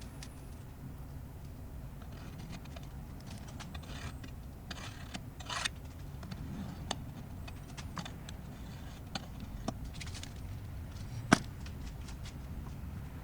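Light workshop handling noises as a cardboard template is traced onto sheet metal: short scrapes and scattered clicks over a steady low hum, with a brief run of scraping about four to five seconds in and one sharp click about eleven seconds in.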